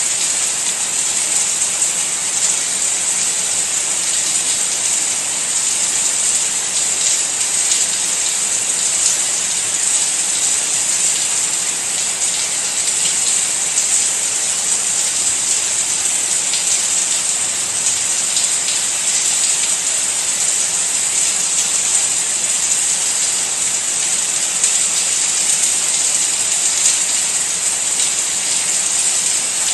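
Rain falling steadily: an even, bright hiss with the faint ticks of single drops scattered through it.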